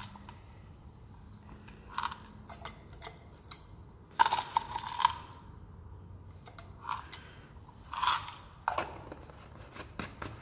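Zinc granules clattering in a plastic tub and against a metal spatula as they are scooped out and tipped into a glass boiling tube: a string of short clicks and rattles, loudest about four seconds in and again about eight seconds in.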